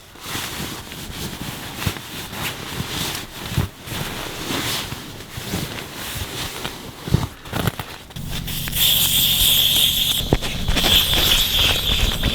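Rustling, knocks and footsteps as a campsite is packed up. From about eight seconds in, a louder steady hiss over a low hum sets in.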